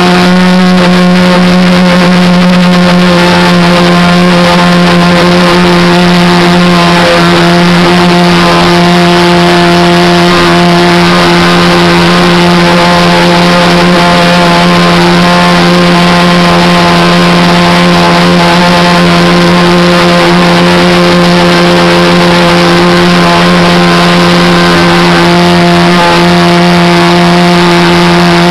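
Engine of a radio-controlled Cessna Skylane 40 model airplane running at a steady, unchanging pitch in flight, very loud and close to a camera mounted under the wing, with rushing wind noise over it.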